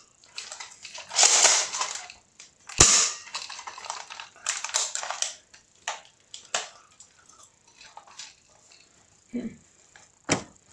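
Air gun fired several times at an aluminium drink can, each shot a sharp crack, with a loud one about three seconds in and another near the end, and rustling handling sounds between shots.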